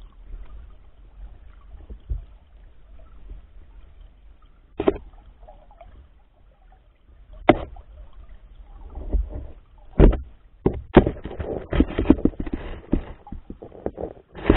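Muffled underwater water noise picked up through a submerged camera housing among spawning sockeye salmon, with a few single sharp knocks. Toward the end it turns into a dense, louder clatter of knocks and scraping as the salmon bump and brush against the housing.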